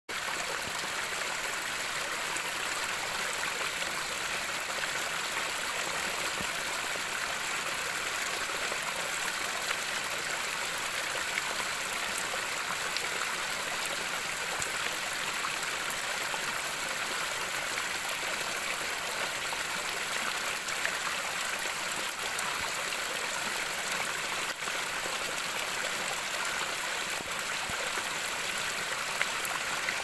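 Rocky stream of water tumbling over boulders in small cascades: a steady, even splashing rush, bright and hissy with little low rumble.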